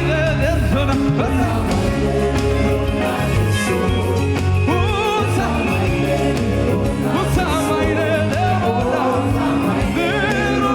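Gospel praise music: a singer's voice with a wavering vibrato over a band with a steady, heavy bass line.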